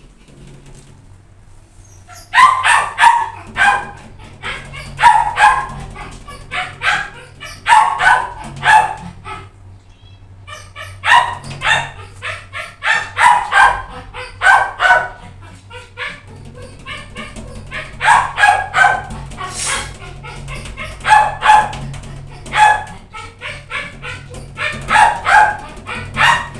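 Dog barking in quick runs of short, sharp yaps, a run every two to three seconds.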